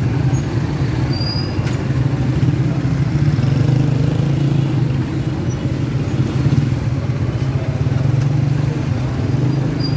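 Small motorcycle and auto-rickshaw engines running in slow, crowded street traffic: a steady low engine drone over general street noise.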